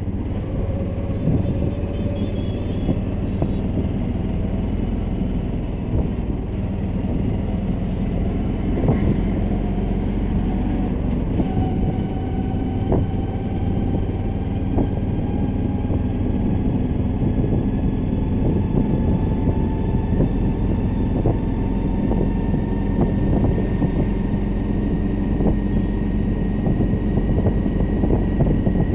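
Road vehicle running along a city street, heard from on board: a steady low engine and road rumble with a thin whine that slowly rises in pitch as it gathers speed, and scattered light knocks.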